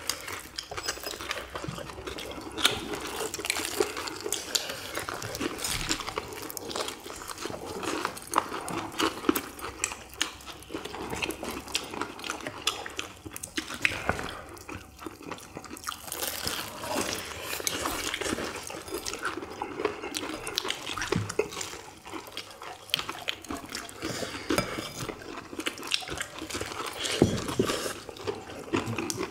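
Close-up eating sounds of fried chicken drumsticks: crispy coating crunching and wet chewing. Irregular crackles and clicks keep coming without a break.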